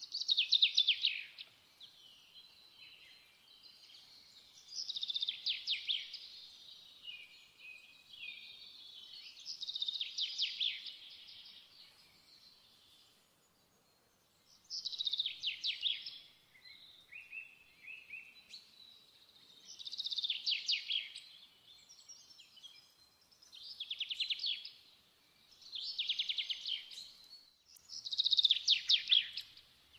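A songbird singing short, rapid trilled phrases, about eight of them, each a second or two long, with pauses of a few seconds between.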